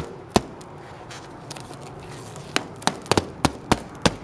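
Plasti Dip rubber coating being peeled off a car hood by hand, making sharp crackling snaps as it comes away from the paint: two near the start, then a quick run of about seven in the second half.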